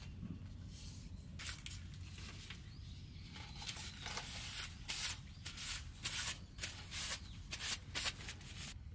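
Paper coffee filters rustling and crinkling as one is pulled from the stack and opened out, in a run of short crinkles that grow louder and closer together in the second half.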